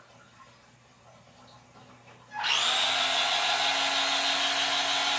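Feiyue FY-10 RC monster truck's electric motor and gear drivetrain spinning up under throttle with the truck held off the ground, its wheels spinning free. The whine starts suddenly about halfway in and holds at a steady pitch.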